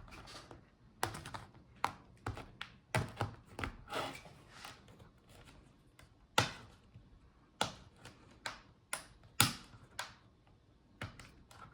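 Irregular sharp plastic clicks and taps from prying the laptop's front display bezel loose, with two louder snaps about six and nine seconds in.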